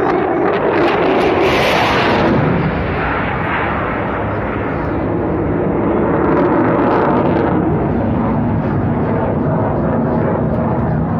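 F-16 fighter jet's engine noise as it flies overhead: a loud rumble with a crackling edge, loudest and harshest in the first couple of seconds, then steady.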